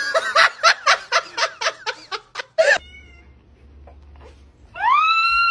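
A cat crying: a fast run of about a dozen short pitched cries, then after a pause one long rising meow.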